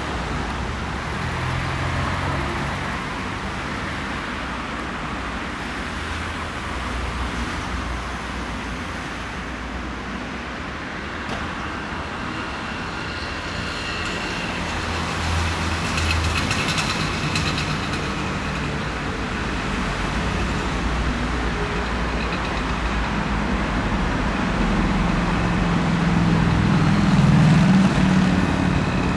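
Boeing 787-9 Dreamliner's jet engines running, a steady rushing noise with a thin high whine in the middle that grows gradually louder, loudest near the end.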